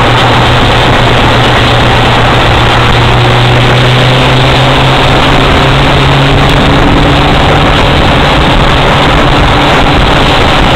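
Vehicle engines running at road speed under heavy wind and road noise, loud and constant, with one engine note climbing slowly in pitch between about four and seven seconds in.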